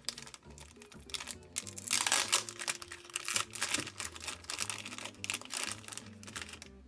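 Packaging being handled and crinkled in bursts, loudest about two seconds in, over quiet background music.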